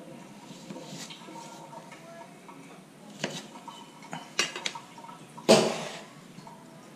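Chef's knife cutting lemons on a plastic cutting board: scattered sharp knocks of the blade against the board, a quick cluster a little past the middle, and the loudest knock, with a short ring after it, about five and a half seconds in.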